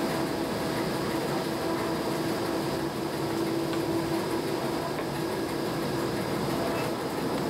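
Historic electric train running steadily, heard from the driver's cab: an even rumble of running noise with a constant hum underneath.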